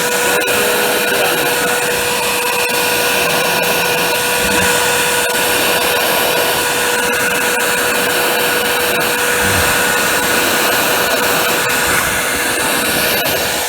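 CNC router milling aluminium sheet: a steady spindle whine over an even rushing noise from the machine and its vacuum hold-down, running smoothly with no change in pitch.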